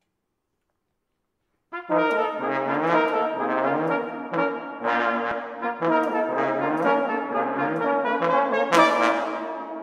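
Brass ensemble music: several brass instruments play a rhythmic tune over a moving bass line. It starts after nearly two seconds of silence and dies away near the end.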